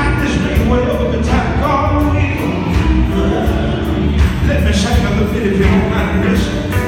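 Live gospel band playing loudly, electric guitar and drum kit with heavy bass, while a male lead singer sings over it through the microphone.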